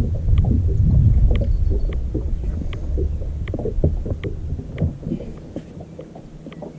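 Wind buffeting the microphone and water lapping against a fishing boat's hull, a low rumble that eases off near the end, with faint irregular ticks over it.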